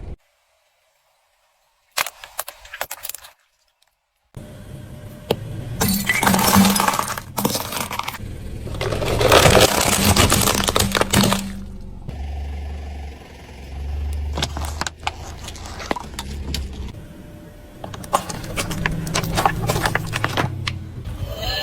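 Crunching and crackling with many sharp clicks, as of something being squeezed, crushed or broken. After about two seconds of silence comes a brief spell of crackles, then another short gap, and from about four seconds in the crunching runs on in dense waves.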